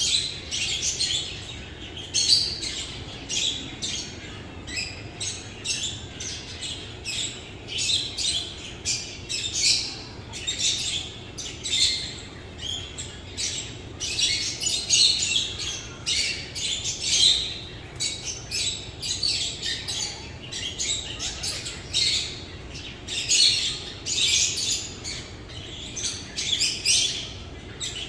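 Many small birds chirping and squawking together, a dense, continuous stream of short, high chirps several times a second.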